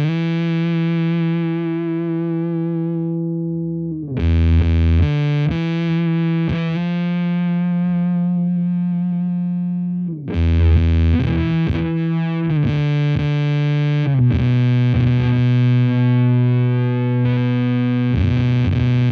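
Electric guitar through a Devi Ever Big Distortion Sound Machine fuzz pedal into a Laney VC30 valve amp, with the pedal's gain turned up. Thick, bassy fuzzed notes and chords ring out and decay; new chords are struck about four, ten and fourteen seconds in.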